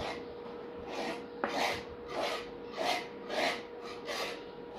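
Painting knife scraping acrylic paint across a canvas board in seven rasping strokes, a little under two a second. A scratchy sound, called irritating.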